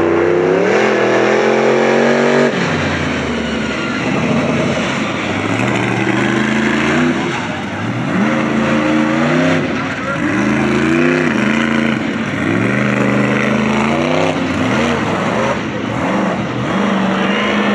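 Dirt-track race cars' engines running hard around the oval, the pitch climbing as they accelerate and falling away as they lift off, over and over, with more than one engine overlapping.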